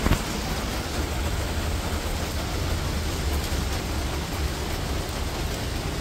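Steady rain falling, heard as an even hiss over a deep rumble on the microphone, with a single knock right at the start.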